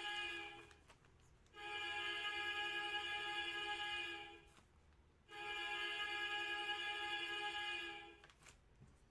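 Music: the same sustained chord held about three seconds, sounded three times with short silent gaps between.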